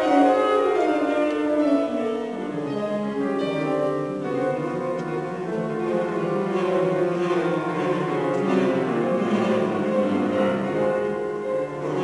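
Chamber music: a piano with bowed strings, cello and violin, playing long held notes, played live on stage.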